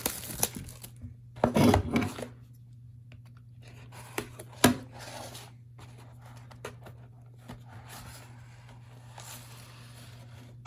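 A hockey card hobby box is unwrapped and opened: its wrapping tears and crinkles in bursts, with two sharp snaps a little past four seconds in, over a steady low hum.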